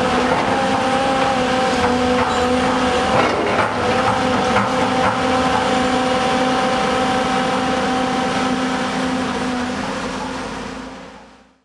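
Hyundai hydraulic excavator's diesel engine running steadily under load, with a few knocks of breaking concrete and debris about three to five seconds in as the bucket works the wall. The sound fades out near the end.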